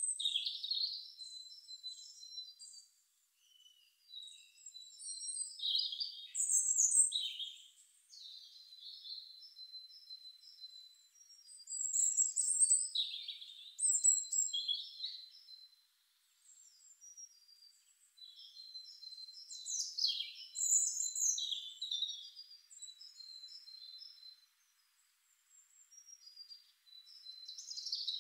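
Birds singing: chirps, trills and short whistles in phrases, with brief pauses between them.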